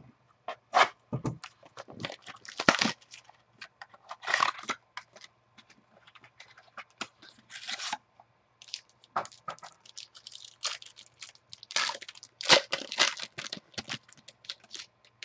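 Foil wrapper of a baseball card pack being torn open and crinkled by hand, in irregular crackling bursts with short pauses between them. The loudest bursts come about three quarters of the way through.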